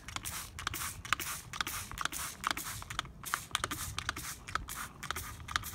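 Hand-held trigger spray bottle being squirted over and over, each pull a short click and hiss of spray, about three or four a second with a brief pause about three seconds in.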